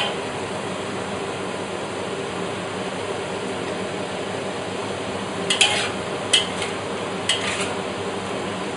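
Stir-fry sizzling steadily in a wok over a gas flame. In the second half, a metal spatula scrapes and clanks against the wok a few times as the food is tossed.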